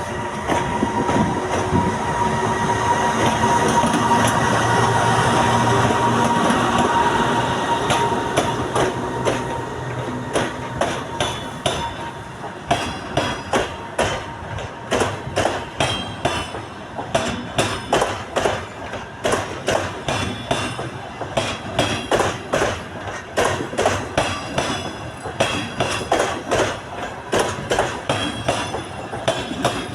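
EP2K electric locomotive pulling a passenger train away: first a steady electric whine from the traction equipment, then, from about a third of the way in, the wheels of the coaches clacking over rail joints in a fast, even rhythm of several clacks a second.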